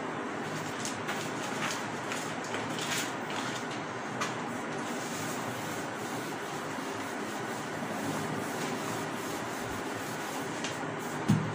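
Whiteboard eraser rubbing across a whiteboard in repeated wiping strokes, with a single soft thump near the end.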